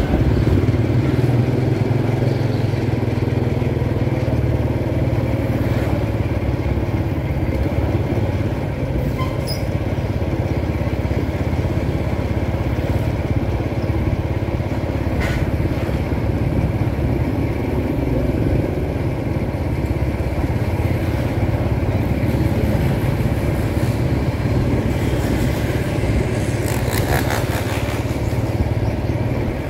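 Motorbike engine running steadily while riding along a city street, with traffic noise around it and a few short clicks.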